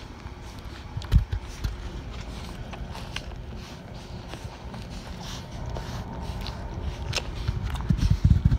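Four-week-old Rottweiler puppies suckling at their mother: scattered wet smacking clicks over rustling fur and soft muffled bumps close to the microphone. The bumps grow heavier near the end.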